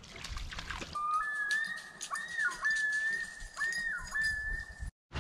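Whistling: a single held note that slides up, dips down and back twice, then cuts off abruptly.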